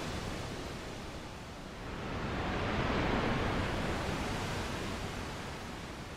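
A steady rushing wash of noise with no distinct tones, swelling to a peak about halfway and easing off near the end, like a wave washing in.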